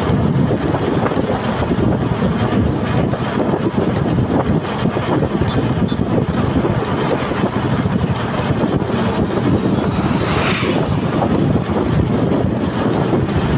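Wind buffeting the microphone: a loud, steady, noisy rumble that flutters unevenly, with a brief hiss about ten seconds in.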